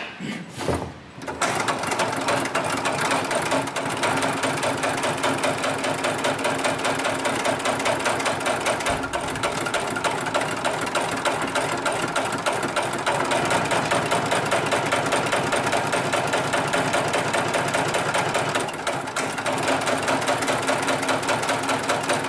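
Hightex 733 extra-heavy-duty single-needle sewing machine with a long oscillating shuttle, stitching through several layers of thick polyester sling webbing. A few separate knocks as it starts, then a rapid, even, mechanical stitching rhythm that eases off briefly about three-quarters through and picks up again.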